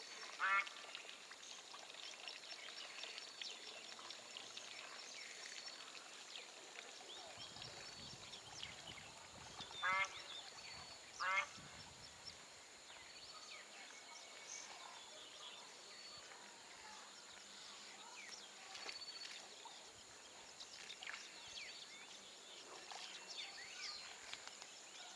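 Waterfowl calling: three short, nasal, quacking honks, one about half a second in and two close together about ten and eleven seconds in, over faint chirping of small birds.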